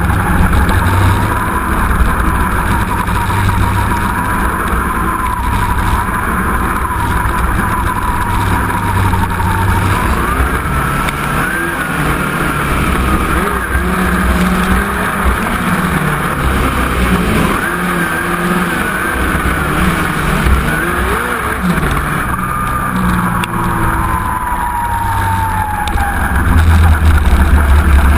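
Midget race car engine heard close up from its own cockpit, running at low speed in a pack of other midgets, its pitch slowly rising and falling with throttle. The engine gets louder near the end as the car speeds up.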